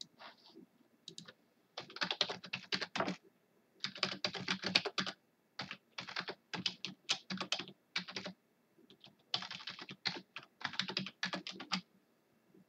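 Typing on a computer keyboard: quick runs of keystrokes in several bursts with short pauses between them, stopping about a second before the end.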